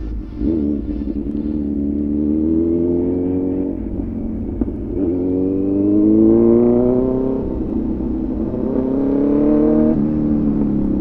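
Motorcycle engine accelerating hard through the gears: the engine note rises in three pulls, each broken off by a short drop as the next gear goes in.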